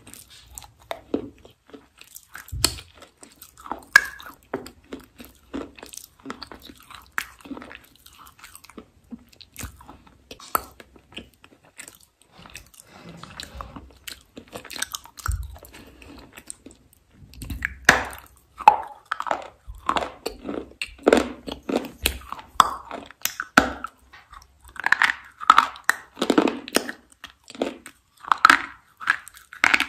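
Close-miked biting and chewing of something hard and crunchy: a run of crisp crunches that grows louder and denser about halfway through.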